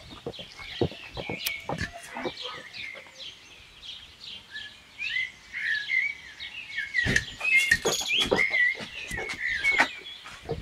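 Small birds chirping repeatedly in short, high calls, with scattered sharp clicks or taps that come thickest toward the end.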